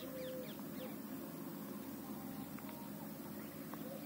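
Faint open-field ambience: distant birds calling, with a short low coo right at the start and a few faint chirps, over a faint steady background noise.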